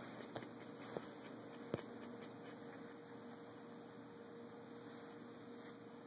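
Faint steady hum and hiss of room tone, with three short, soft clicks in the first two seconds.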